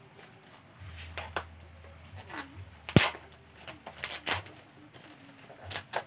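A small cardboard box and its plastic packaging being handled and opened by hand: scattered rustles and clicks, with one sharp click about three seconds in.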